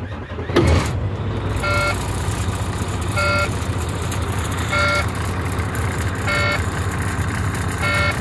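2006 Volvo truck's diesel engine idling just after starting, with a brief louder surge about half a second in. Over it the dashboard warning chime beeps five times, about one and a half seconds apart, sounding the stop warning raised by the low coolant level.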